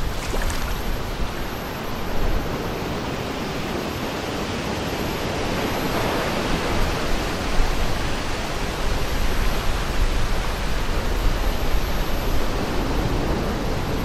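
Wind gusting over the microphone: a steady rushing noise with low buffeting rumbles that rise and ease.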